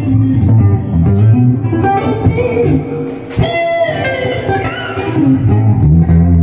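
PRS SE CE24 electric guitar played through an amp on a clean lead tone: a busy run of single-note lead lines that climbs into higher notes a little past halfway.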